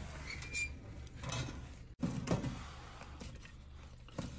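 Split firewood being pushed into the firebox of a homemade sheet-metal wood stove, with soft knocks and scrapes of wood against the metal.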